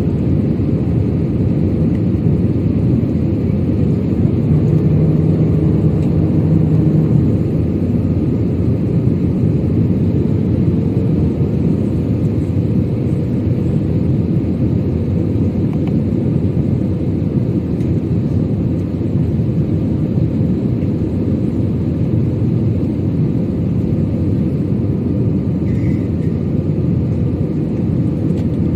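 Steady low rumble of a jet airliner's engines and rushing airflow heard inside the passenger cabin, with a brief low hum a few seconds in.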